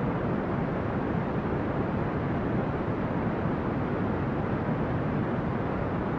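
Brown noise: a steady, even rumbling hiss, strongest in the low end and falling off toward the highs, with no changes.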